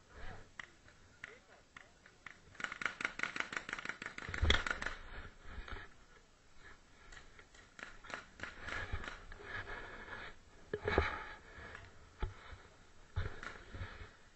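Rustling and rapid clicking right at a body-worn camera's microphone as the camera is moved about, in several runs of a second or two, with faint voices behind.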